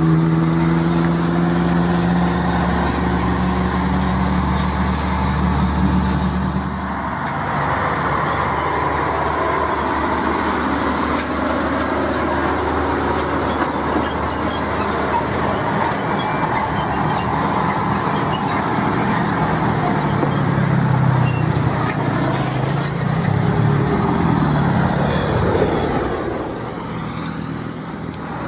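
Heavy diesel trucks passing on a road. A steady engine hum for about the first seven seconds gives way to tyre and road roar, and another truck engine comes through again about two-thirds of the way in.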